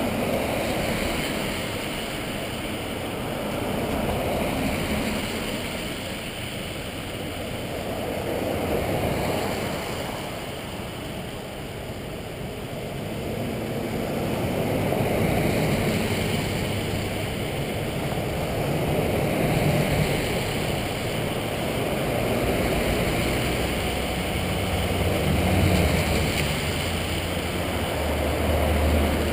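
Vehicles in a procession driving past one after another: tyre and engine noise swells and fades every few seconds. A low engine hum comes up near the end.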